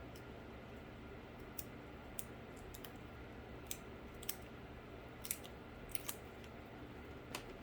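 Small, sharp clicks and snips, about nine scattered irregularly over several seconds, from hands working on a cardboard PC case. A faint steady low hum runs underneath.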